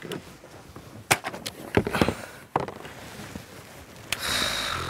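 A few light knocks and clatters as a plastic case is set down on a plastic table and a man settles into a plastic chair, then a short steady rushing noise near the end.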